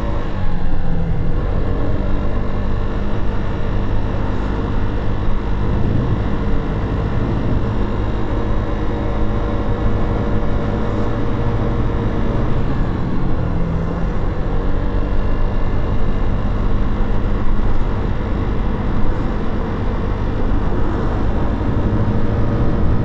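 Motorcycle engine running under way at low city speed, its note dropping about a second in and changing pitch a few more times as the speed changes, over steady road and wind noise.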